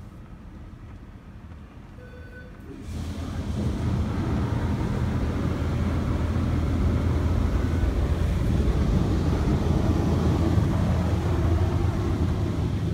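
Automatic car-wash machinery starting abruptly about three seconds in and then running steadily: a loud rushing noise over a deep hum, heard from inside the car's cabin.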